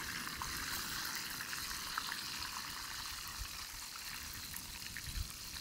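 Beer-battered basa fillets deep-frying in hot oil in a cast iron skillet: a steady sizzle with scattered small crackles.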